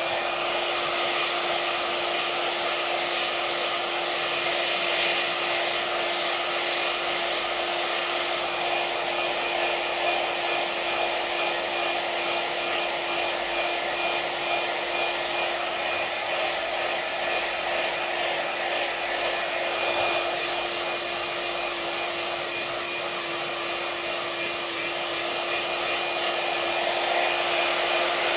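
iTeraCare handheld terahertz wand switched on and running, its built-in fan giving a steady hair-dryer-like whir with a constant low hum. It starts abruptly and holds level throughout.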